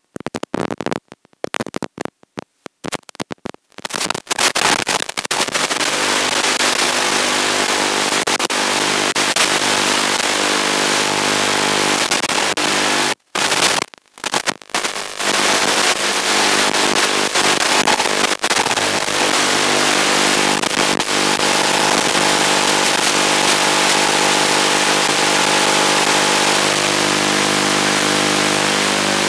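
Analog FPV video-link receiver audio: crackling and cutting in and out for the first few seconds as the signal breaks up, then a steady loud hiss with a constant buzzing hum, dropping out briefly twice about halfway through.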